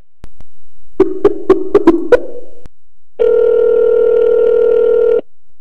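Telephone call being placed: a line click, a quick run of keypad dialing tones, then one steady ringback tone about two seconds long that cuts off sharply as the number rings.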